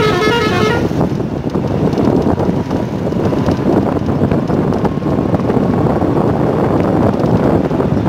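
Steady road and engine noise of a moving vehicle, with wind buffeting the microphone. A vehicle horn sounds a quick run of short notes during the first second.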